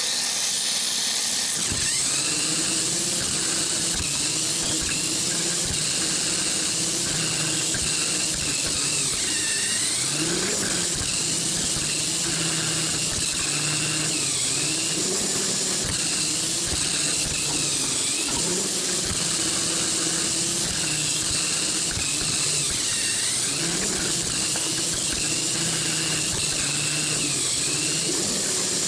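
Mini 4WD car's stock motor and 11.2:1 gears whining at speed, heard from a camera riding on the car. The pitch dips briefly every few seconds, and small clicks and knocks run through it as the car runs along the plastic track.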